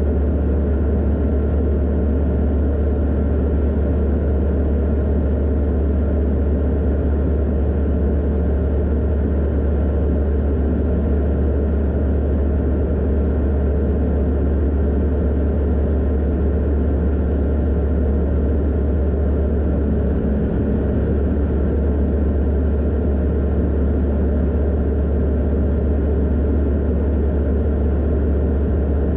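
Steady drone of a Van's RV-12iS light aircraft in cruise: its Rotax 912iS engine and propeller, with rushing airflow, at an even level.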